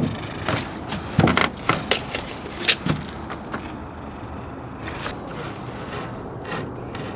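A handful of sharp wooden knocks and taps over the first three seconds as pine boards and 2x2 braces are handled and set in place on a wooden door panel, then only quieter handling sounds.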